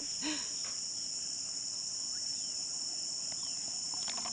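Chorus of insects calling in one steady, unbroken high-pitched drone, with a few light clicks near the end.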